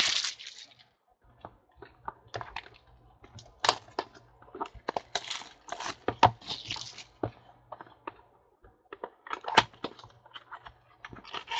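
Trading cards and their packaging handled on a table: a string of sharp clicks and taps with short rustles, as cards are sorted and the next pack is opened.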